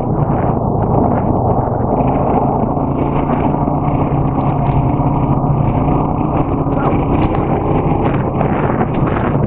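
ATV engine running steadily under way, its pitch holding fairly even.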